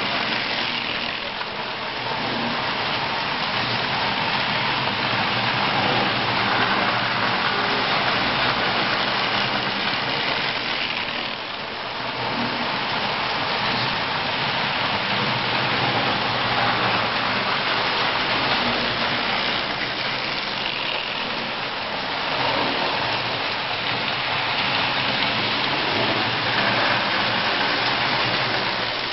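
Marx tinplate toy trains running on three-rail tubular metal track: a steady metallic rattle and motor whir of wheels on the rails. It swells and eases by turns, dipping about every ten seconds as the train passes.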